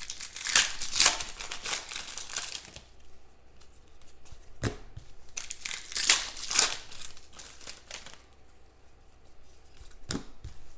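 Foil wrappers of football trading card packs crinkling and tearing as the packs are opened by hand, with cards slid and shuffled. The rustling comes in several short bursts with quieter gaps between.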